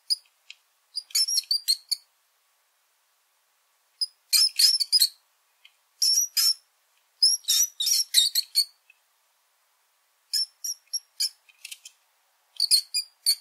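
Mouse squeaking: short runs of quick, high-pitched squeaks, with pauses of about a second between runs.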